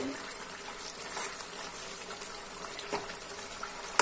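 Cauliflower curry in a milky gravy simmering in a metal kadai, with a steady bubbling hiss. A metal spatula clacks against the pan at the very end.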